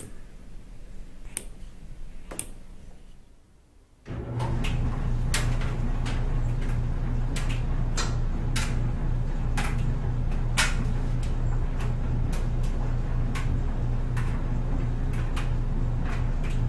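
Clothes dryer starting up about four seconds in after a couple of sharp clicks: a steady low motor hum with irregular clicks and taps as the load tumbles in the drum.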